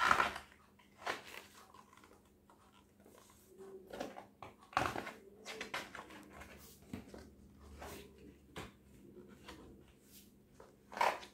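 Pages of a large paperback picture book being turned and handled: a scattering of short paper rustles and flaps, loudest at the start and again near the end.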